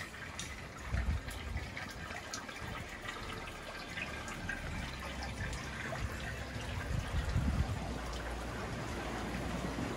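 Water trickling steadily over the overflow edge of an infinity pool into its gutter. Low rumbles of wind on the microphone come about a second in and again around seven seconds.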